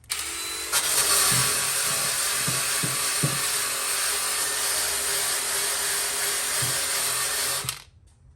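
Handheld electric power tool abrading rust off a car's steel body panel. It starts, reaches full speed about a second in, runs steadily for about seven seconds, then stops abruptly.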